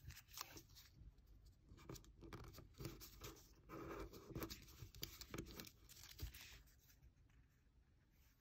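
Faint rustling and creasing of a small sheet of origami paper being folded and pressed flat by fingers, a string of soft scrapes and crinkles that thin out near the end.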